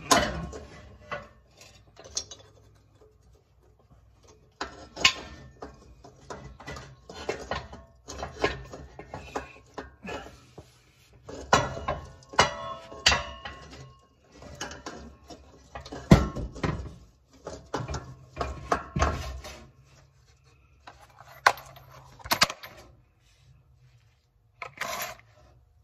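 Irregular metal clinks, knocks and scrapes of hand tools on steel parts, some briefly ringing, as a nut bound on an exhaust downpipe stud is worked loose.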